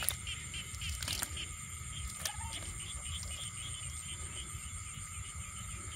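Night-time insect chorus: steady high-pitched trilling, with a short chirp repeating about four times a second, over low rumbling handling noise and a few clicks in the first second or so.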